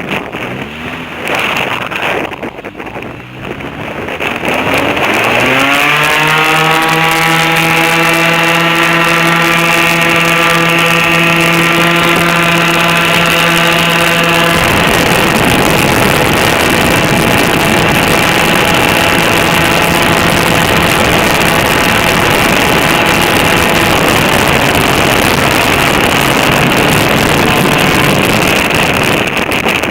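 Airboat's engine and propeller revving up about five seconds in, then running loud and steady at a constant pitch. About halfway through the tone turns rougher.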